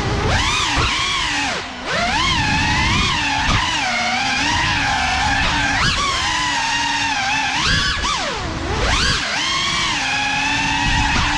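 FPV quadcopter's motors and propellers whining, the pitch rising and falling continuously as the throttle changes, with a brief drop just before two seconds in.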